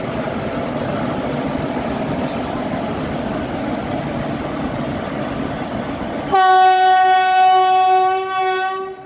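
Steady rumble of trains running on the rails. About six seconds in, a train's horn sounds one long steady note, the loudest sound here, which stops just before the end.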